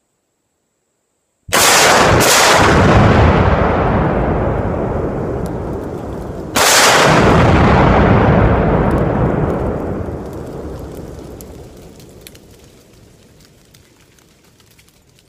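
Three C4 explosive charges detonating: two blasts less than a second apart, then a third about five seconds later, each followed by a long rumble that slowly fades away.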